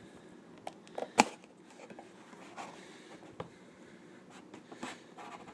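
Scattered small clicks, taps and light scraping from a tool and a cardboard toy box being handled, with one sharp click about a second in.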